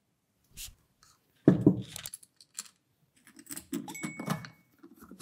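Twin Keihin carburettors of a Honda CX500 being handled and set down on a workbench: a sharp metal knock about one and a half seconds in, then a run of light metallic clicks and clinks.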